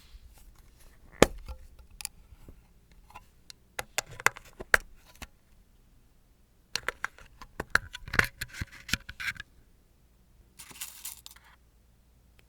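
Small hard nail tools and bottles being handled close up: a series of sharp clicks and taps in three clusters, the loudest about a second in, then a short rasp near the end.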